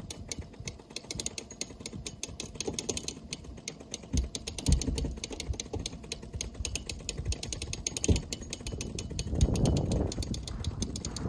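Boots crunching over hard-packed, crusted snow on lake ice: a dense crackle of fine clicks with a few dull thumps, and a louder scuffing rustle about nine and a half seconds in.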